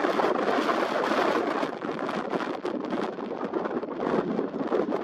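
Strong wind buffeting the camera's built-in microphone, a loud rushing roar that swells and dips in gusts.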